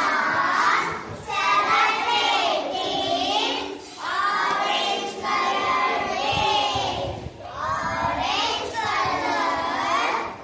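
A crowd of children shouting and cheering together in loud phrases a second to a few seconds long, with short pauses between them.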